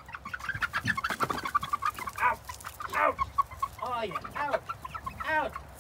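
A flock of eight-week-old red pullets keeps up a run of short clucks and peeps. About five louder, longer calls come through it, each rising and then falling in pitch.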